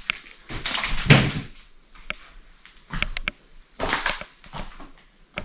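Footsteps scuffing and crunching over a debris-strewn floor in a few irregular bursts, with several sharp knocks and clicks.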